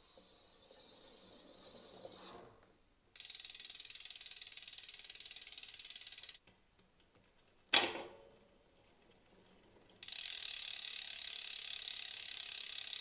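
Rear freehub of a gravel bike wheel clicking fast and evenly as the wheel spins freely in a stand, in two stretches, with one sharp click between them. The brake pads are not rubbing on the rotor.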